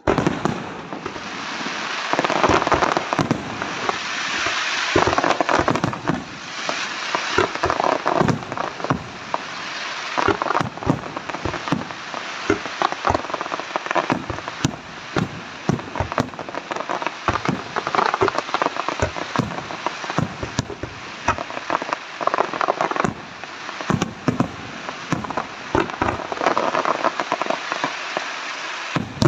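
Aerial fireworks display: a dense, unbroken barrage of shell bursts, sharp bangs and rapid crackling pops.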